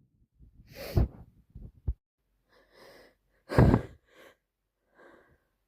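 A woman with a wet head cold sneezing twice, about a second in and again, louder, about three and a half seconds in, with short breaths between and after.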